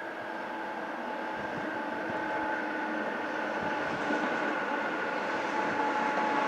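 ČSD class 460 electric multiple unit approaching along the track and growing steadily louder. A thin, steady high whine sits over its running noise.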